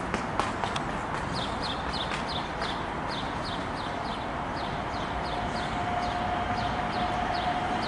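A bird calling in a rapid series of short, high, falling chirps, about three or four a second, over steady background noise. A steady humming tone comes in about halfway and grows louder toward the end.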